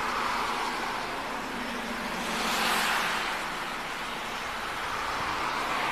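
Road traffic noise: a passing vehicle's tyre and engine noise swells to its loudest about two and a half seconds in, then fades away.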